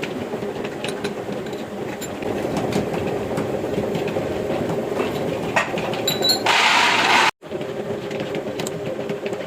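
A workshop machine running steadily with a dense, clattering rattle. A louder hissing burst starts about six and a half seconds in and stops abruptly.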